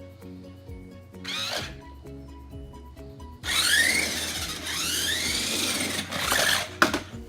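Small electric motor of a Mario Kart remote-control toy car whirring in bursts, its pitch rising and falling as it speeds up and slows: briefly about a second in, then a longer run from about three and a half seconds in until near the end.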